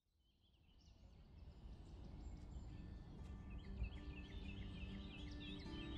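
Outdoor field ambience fading up from silence: a low rumble with small birds chirping repeatedly, growing louder. Steady music notes come in near the end.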